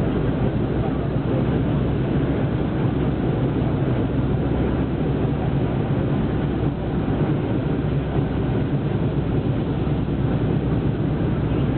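Republic P-47 Thunderbolts' Pratt & Whitney R-2800 eighteen-cylinder radial engines running on the ground: a loud, steady, deep rumble.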